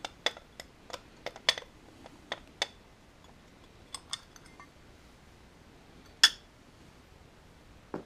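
Light metallic clicks and clinks of loose Allen bolts being turned out by hand from the chrome clutch-side cover of a Yamaha Virago XV750: a quick run of small clicks over the first few seconds, a few more around four seconds, and one sharper clink about six seconds in.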